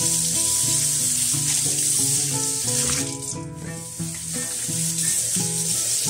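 Kitchen tap running, the stream splashing over plastic bowls being rinsed by hand in the sink, a steady hiss that thins briefly past the middle. Background music plays underneath.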